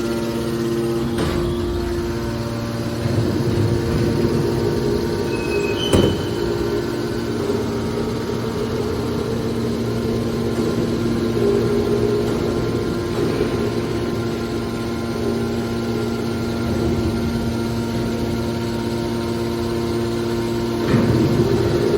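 Hydraulic scrap metal baler running: the steady hum of its power unit, with a sharp metallic clank about six seconds in and a few duller knocks near the start and end.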